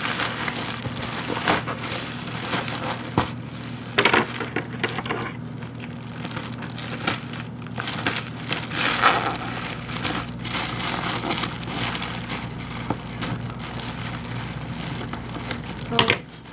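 Cardboard box and plastic packaging being pulled open and crumpled by hand: irregular crinkling and crackling with a few sharper cracks, over a steady low hum.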